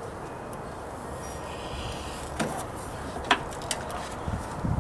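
A screwdriver and metal parts clicking and knocking inside a washer's metal cabinet while a screw is fitted into the water inlet valve mount: three or four sharp clicks in the second half, then a few low knocks near the end, over steady background noise.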